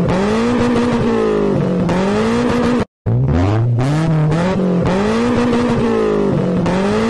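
A car engine accelerating hard, its pitch climbing in steps with a dip at each gear change. The run cuts out briefly about three seconds in and then plays over again.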